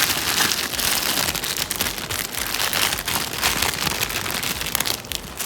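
Plastic wrapping crinkling as a resin figure is pulled out of it: a dense, continuous run of small crackles, easing a little near the end.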